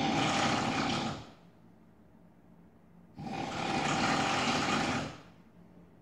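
A sleeping man snoring, loud enough to be likened to a drill, jackhammer or chainsaw. One snore ends about a second in, and the next starts about three seconds in and lasts about two seconds.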